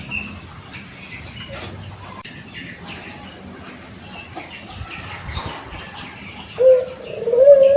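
Six-month-old puter pelung dove cooing: after a quiet stretch with faint rustles, a short note sounds about six and a half seconds in, then a long drawn-out coo begins that rises and then slowly falls in pitch.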